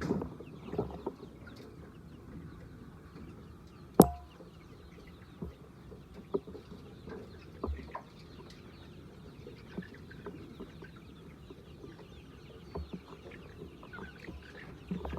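A flock of laying hens clucking, with scattered short calls throughout. About four seconds in there is one loud sharp knock that rings briefly.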